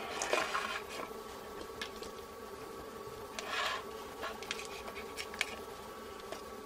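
Silicone-insulated hookup wire drawn out of a cardboard spool dispenser box and handled: a short rubbing rustle about half a second in and another about three and a half seconds in, with a few light ticks, over a steady faint hum.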